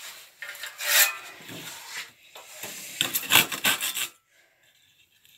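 Handsaw rasping through a wooden board in a series of strokes, quickening into a rapid run before stopping about four seconds in. The board splinters badly as it is cut.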